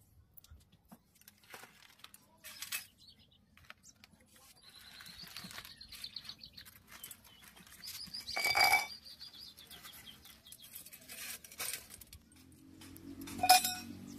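Dry vermicelli strands crackling and rustling as they are handled, with a loud ringing clink of a stainless steel plate a little past halfway and another metallic clank from a steel tin and its lid near the end.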